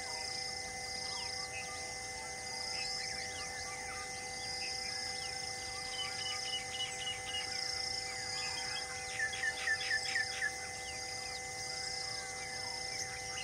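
Wild birds calling in open grassland: scattered short chirps, a quick run of repeated notes just under halfway through, and about two-thirds of the way through a run of about six quick falling chirps, the loudest sound. Under them run steady held tones and a high note that repeats about once a second.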